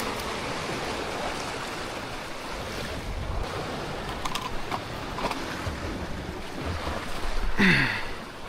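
Ocean surf and wind rushing over the microphone in a steady wash. A short, louder sound sweeps downward in pitch about three-quarters of the way through.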